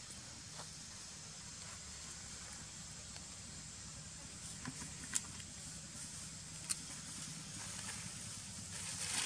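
Faint steady background hum and hiss, with a few short sharp clicks or snaps, the clearest about five seconds and six and a half seconds in, and a few more near the end.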